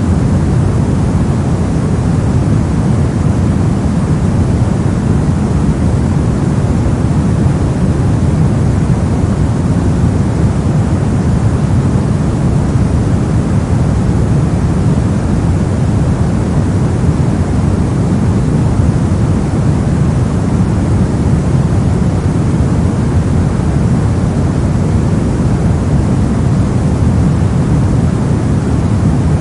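Steady brown noise: a continuous, deep rushing hiss, strongest in the low end, with no changes.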